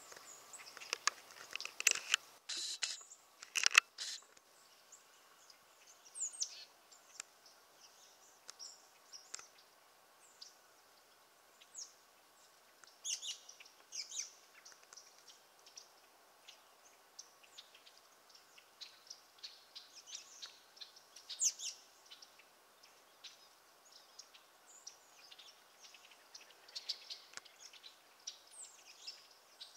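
American goldfinches chirping and twittering: short, high calls scattered throughout, thickest and loudest in the first four seconds.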